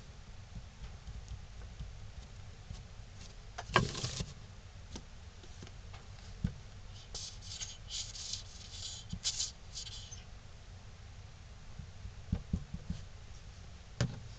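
Hands working pine pieces on a newspaper-covered table during glue-up: a sharp knock as a wooden piece is set down about four seconds in, a run of short scratchy bursts in the middle while wood glue is squeezed from a bottle onto the layers, a few small clicks, and another knock near the end.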